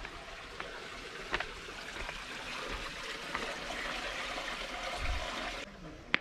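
Spring water pouring from a stone spout into a small basin, a steady trickle and splash that grows louder, then cuts off abruptly near the end. A few sharp clicks, the loudest one just before the end.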